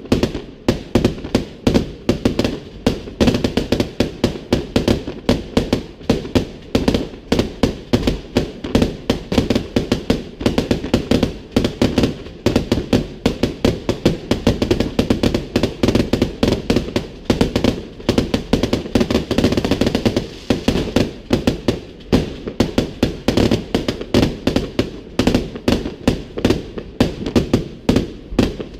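New Year's fireworks display: a continuous barrage of loud firework bangs, several a second, without a break.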